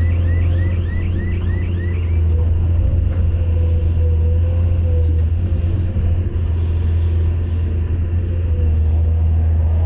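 Excavator's diesel engine running steadily with a deep drone and a faint wavering whine over it. A short rising chirp repeats about four times a second, then stops about two seconds in.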